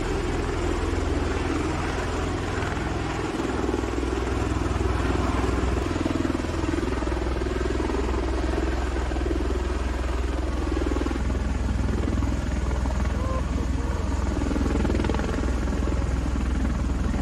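V-22 Osprey tiltrotor hovering low and setting down in helicopter mode, its two rotors making a steady, deep rotor din.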